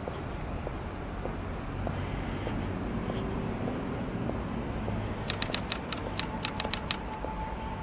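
City street ambience with a steady low traffic rumble. A little over five seconds in, a quick run of about a dozen sharp clicks lasts about a second and a half, with a faint steady high tone starting under it.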